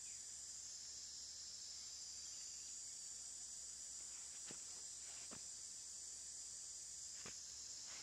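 A steady, high-pitched chorus of insects, with three short clicks about halfway through and near the end.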